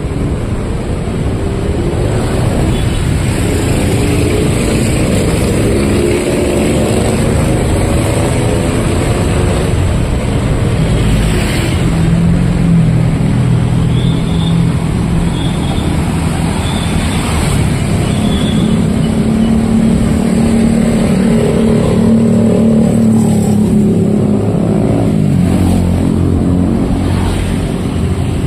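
Busy street traffic: cars and motorcycles passing close by, their engines rising and falling in pitch as they go. A run of short high beeps sounds about halfway through.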